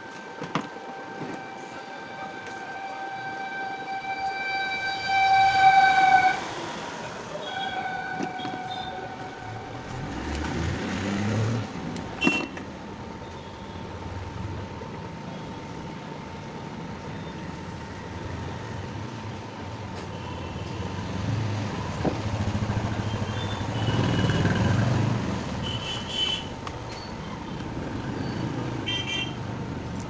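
A vehicle horn sounding, one long blast of about four seconds and then a shorter one, followed by low rumbling of passing traffic with a few sharp clicks. A thin steady high tone runs underneath.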